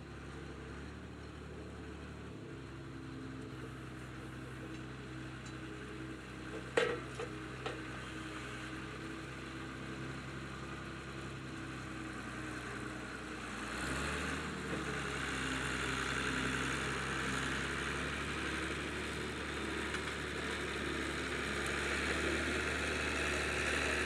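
David Brown 1594 tractor's diesel engine running steadily under load at low revs while pulling a reversible plough, growing gradually louder as it comes closer. A brief sharp knock about seven seconds in.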